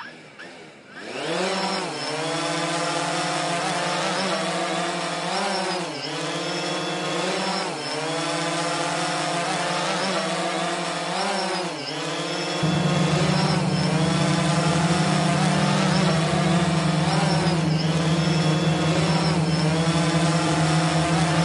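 Quadcopter drone motors and propellers whining, the pitch dipping and climbing again every few seconds as the throttle is cut and reapplied during rolls. About halfway through a louder, steadier low hum comes in under the whine.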